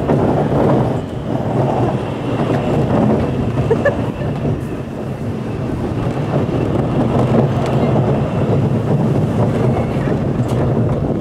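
Zierer family roller coaster train running along its steel track, heard on board: a steady rumble of the wheels on the rails.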